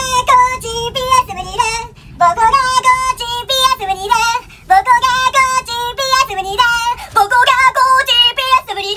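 A high-pitched voice singing a tune in short, clipped notes. There are three phrases, with brief breaks about two seconds in and about four and a half seconds in.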